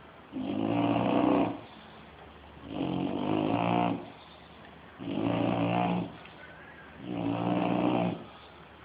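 Bulldog snoring in its sleep: four snores at an even pace, one about every two and a half seconds, each lasting a little over a second, with quiet breaths between.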